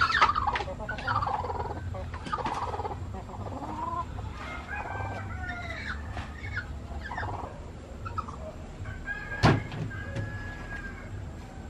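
Chickens clucking and calling in a run of short, bending calls. A single sharp knock about three quarters of the way through is the loudest sound.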